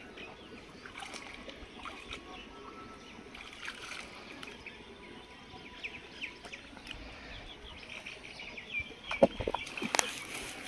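Small splashes and trickling of shallow muddy pond water stirred by hands groping under the surface, with birds chirping in the background. A few louder splashes come near the end.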